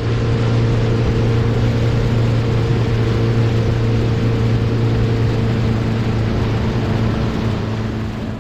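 Outboard motor of a small skiff running steadily under way, a constant engine hum over a rush of wind and water noise. It eases off near the end.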